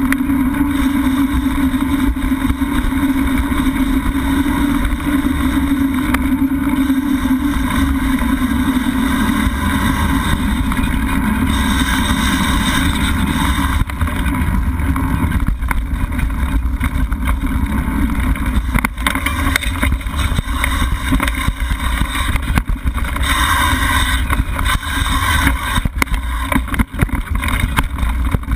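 Mountain bike riding over a dirt singletrack: a steady low rumble of tyre and motion noise with frequent small knocks and rattles as the bike goes over bumps.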